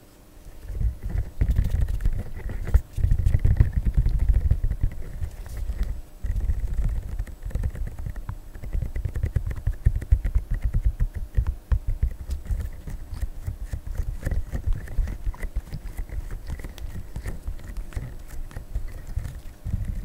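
Fingers squeezing and rubbing a silicone pimple-popping toy pressed close to a microphone: dense, irregular low rubbing and rumbling with soft crackles, starting about half a second in.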